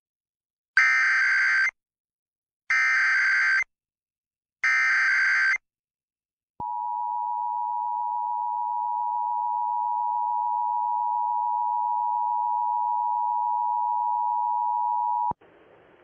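Emergency Alert System test signal on an FM broadcast: three short bursts of SAME digital header data, about a second each and two seconds apart, then the two-tone attention signal, a steady two-pitch tone held for about nine seconds, that opens a required monthly test.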